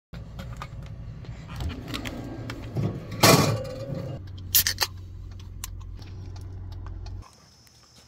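Metal drink cans clinking and clattering on a wire shelf as one is pulled from a glass-door drink cooler, over a steady low hum. The loudest clatter comes about three seconds in. Near the end the hum cuts off and a faint, steady insect chirring takes over.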